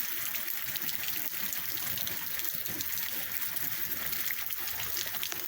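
Heavy rain pouring steadily, with water running and many close drops ticking.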